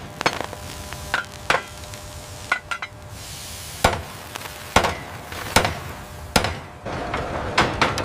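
Hammers striking iron rivets and girders: about a dozen sharp metallic blows at irregular intervals, each ringing briefly, over a steady din of work.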